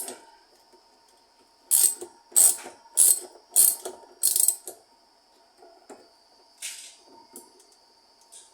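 Ratchet wrench clicking in five quick strokes, running down a 13 mm nut, followed by a few fainter clicks.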